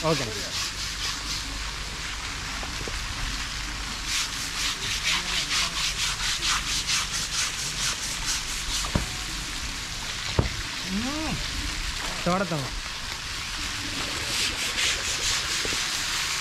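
Rhythmic scraping of an elephant's hide being scrubbed during its bath, in quick regular strokes that come and go. Two short calls rise and fall in pitch near the middle.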